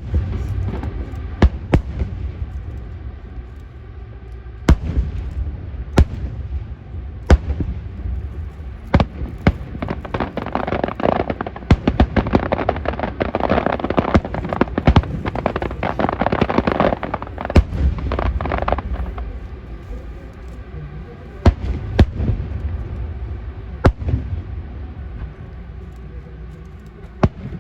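Fireworks display: sharp bangs every second or two, with a dense stretch of crackling near the middle, over a steady low rumble.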